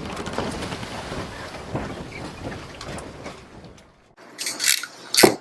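Wind noise buffeting the microphone, which drops away about four seconds in. A few sharp clicks or knocks follow, the loudest just before the end.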